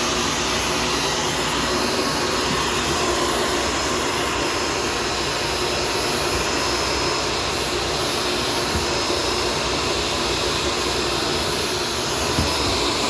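Shark self-cleaning vacuum cleaner running steadily as it sucks up dirt from the floor, with a brief knock near the end.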